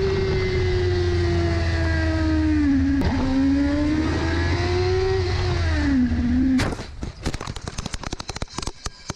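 Sports motorcycle engine running at high speed under heavy wind rumble, its pitch slowly falling, dipping and rising again. About six and a half seconds in the engine note cuts off and a rapid run of sharp impacts and scraping follows as the bike crashes and tumbles.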